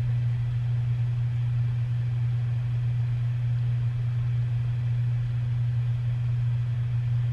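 Steady low room hum with a faint hiss, unchanging throughout.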